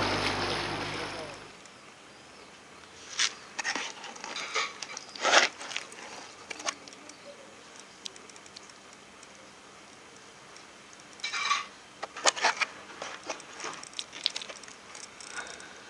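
Boat motor and wind noise fades out in the first second and a half. Then a hand handling fresh fish in a soft insulated cooler bag: scattered wet rustles, slaps and clicks in two clusters, one a few seconds in and one near the end.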